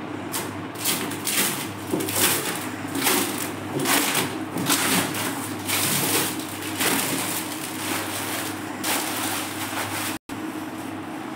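Black plastic wrapping sheet being pulled off and crumpled by hand: a run of irregular crinkling rustles, over a steady low hum.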